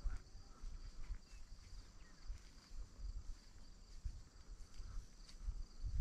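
A faint, steady, high-pitched chorus of insects chirring in grassland, with irregular low rumbling underneath.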